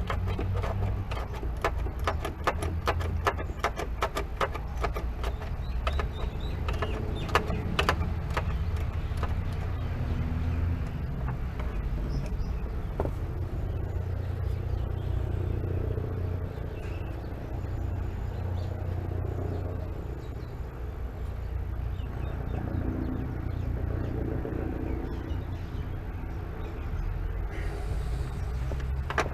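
Ratchet wrench clicking rapidly for the first several seconds as the clutch pedal bracket's nuts are undone, then sparser clicks and handling noises. A steady low hum runs underneath.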